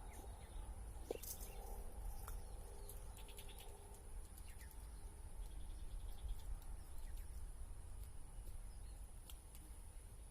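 Quiet outdoor ambience: a steady high-pitched insect drone, with a few short runs of rapid chirps, over a low rumble.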